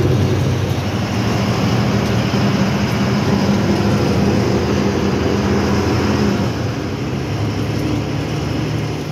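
Diesel truck engine running on the move, heard from inside the cab along with road noise. Its note drops a little about six and a half seconds in.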